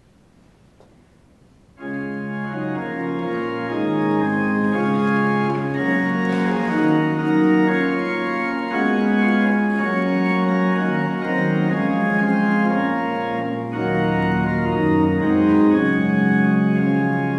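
Church organ starting suddenly about two seconds in and playing slow, held chords, with a deeper bass note joining near the end.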